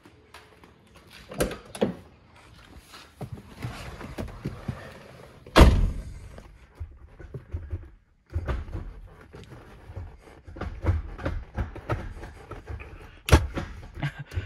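A 1987 BMW E30 325is's door being opened and shut with a loud thunk about five and a half seconds in, amid the small knocks of someone getting into the seat. Then the five-speed gear lever is moved through the gears with the engine off: a run of clicks and knocks, with a sharper clunk near the end. This is a check of a shift linkage whose selector rod has just been re-bent so that it no longer rubs on the vibration damper.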